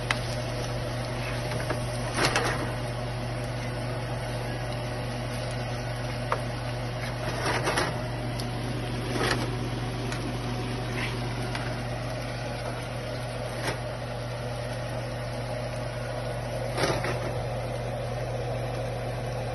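A spoon stirring ackee and saltfish in a nonstick frying pan, with about six short scrapes and knocks against the pan a few seconds apart. A steady low hum runs underneath.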